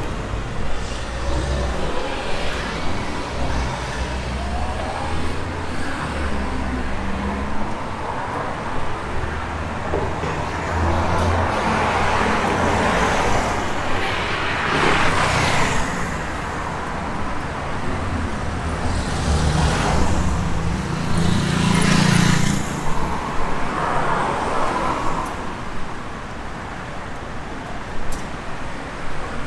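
Street traffic: cars driving past one after another, each rising and fading over a few seconds, over a steady low road rumble.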